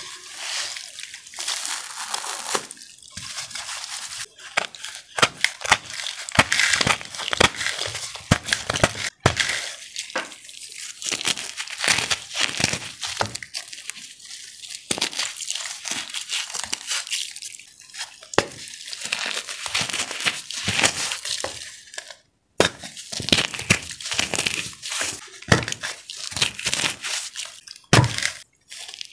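Soft, water-soaked cornstarch coated in blue iron oxide being crushed and squeezed by hand: a dense run of wet crackling and crumbling with short pauses.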